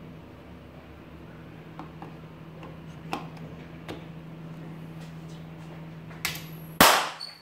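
Inverter welding machine powered up on the bench, running with a steady low hum and a few light clicks. A little before the end comes a short, loud burst of rushing noise.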